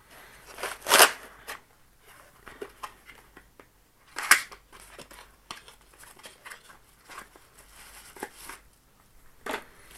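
Rustling and handling of packaging and small parts, with short clicks and knocks; the two loudest come about a second in and just after four seconds.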